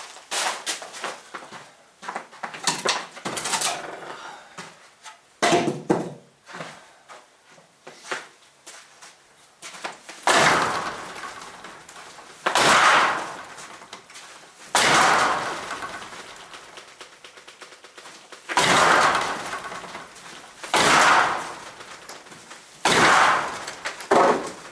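Wooden boards being forced off a garage wall. There are a few scattered knocks, then heavy banging blows about every two seconds, each with a short ring after it. The boards are being knocked loose by force because their screws and nails are rusted or stripped.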